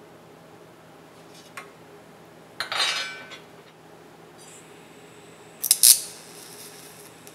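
A metallic clatter of tools on a steel welding table about three seconds in, then a TIG welding arc striking on steel plate just before six seconds in with a short crackle, followed by the faint steady hiss and hum of the arc as a tack weld is made.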